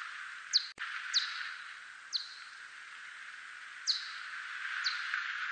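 Whiskered bat (Myotis) echolocation calls brought down into hearing range: five short, steeply falling chirps at irregular intervals over a steady hiss.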